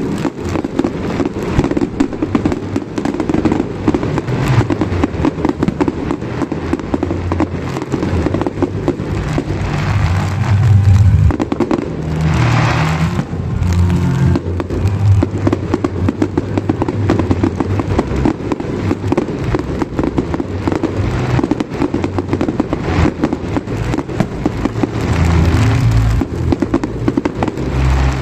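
Fireworks bursting in rapid, dense succession, with many bangs and crackles.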